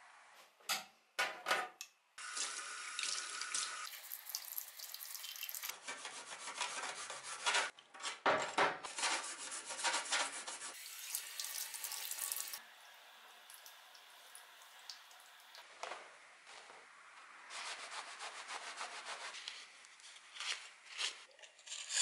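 Tap water running into a stainless steel sink as a small axe head is rinsed under it, with a few sharp clicks near the start. The water is loudest in the first half and quieter and more broken later on.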